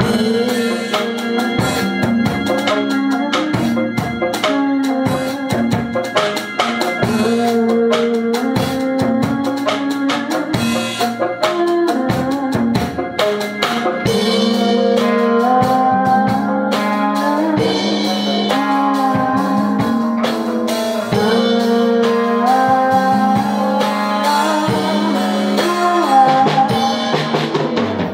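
Alternative rock band playing a song: drum kit, bass guitar and electric guitar, with a woman singing over it in the second half.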